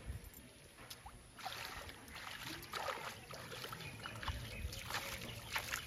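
Hands splashing and sloshing in shallow pond water at the bank, as small irregular splashes that start about a second and a half in.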